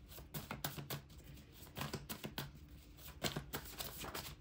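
A deck of cards being shuffled and handled, a run of quick irregular clicks and snaps of card against card.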